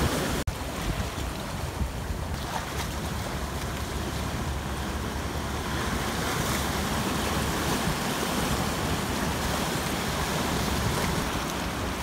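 Sea surf washing and breaking steadily around shoreline rocks, with wind rumbling on the microphone.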